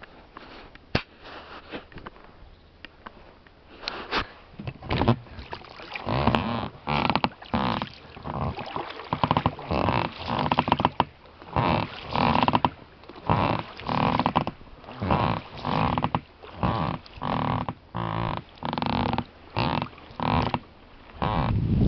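Oars working in the rowlocks of an inflatable rowing boat, a rhythmic pitched creak with each stroke, about once a second. A louder low rush comes in near the end.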